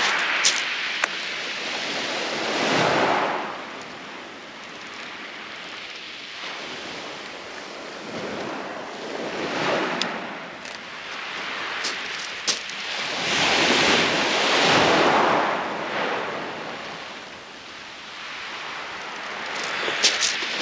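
Waves washing onto a shingle beach, swelling and fading about four times, with a few sharp clicks here and there.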